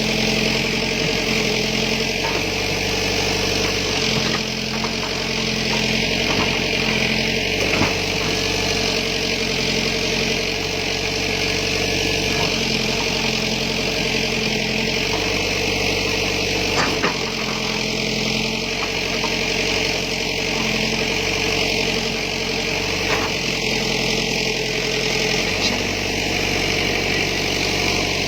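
Backhoe's diesel engine running steadily, its low note shifting every second or so as the load changes, under a steady high hiss, with a few short knocks.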